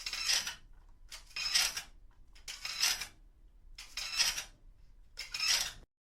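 Rusty metal grating and creaking in a slow, even rhythm: five rasping strokes about 1.3 seconds apart.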